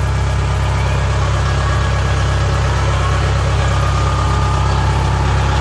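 Kubota DC60 combine harvester's diesel engine running steadily, a continuous deep drone.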